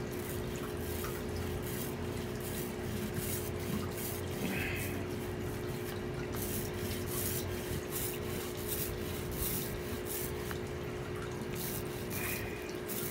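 A small 4-inch paint roller rolling wet paint onto an aquarium's glass, a sticky, crackling hiss that comes and goes with each stroke. A steady low hum runs underneath.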